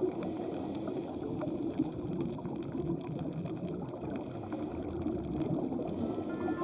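Muffled, steady rush and bubbling of water on the camera's microphone while snorkeling in the sea.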